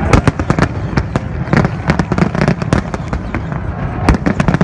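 Aerial fireworks display: shells bursting in quick, irregular succession, sharp bangs and crackles over a continuous low rumble, with the loudest bangs just after the start and about four seconds in.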